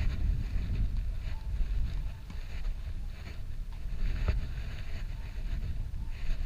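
Wind buffeting the microphone, a steady low rumble, with a few faint clicks over it.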